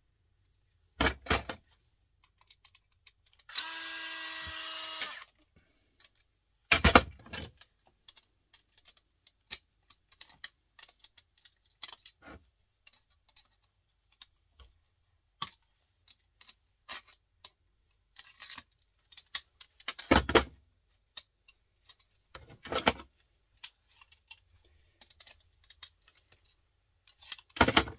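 Printer parts being handled and pulled apart: scattered clicks, rattles and knocks of plastic and metal pieces, with a few louder clunks. A brief steady whine lasting about a second and a half comes a few seconds in.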